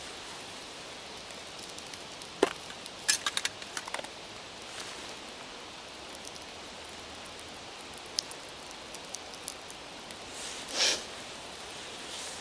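A small fire of birch bark and split kindling catching in a ground pit, crackling with a few sharp pops: a loud pop about two and a half seconds in, a quick run of cracks just after, scattered smaller ticks, and a short rustle near the end, over a steady outdoor hiss.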